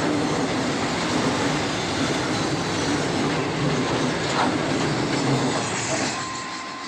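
Container freight wagons rolling past on the rails with steady wheel-on-rail noise. The noise eases off about six seconds in as the last car goes by.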